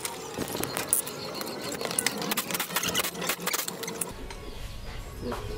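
Hand tools clicking and clinking against the metal of a motorcycle engine being taken apart, a quick, uneven run of small sharp clicks.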